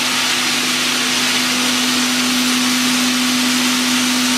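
Bottle washing, filling and capping machine running steadily: a constant hum with an even airy hiss over it.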